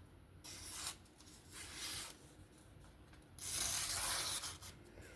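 A Civivi Vision FG folding knife's blade being drawn through three times to test its edge: three rough, hissing strokes, the last one the longest.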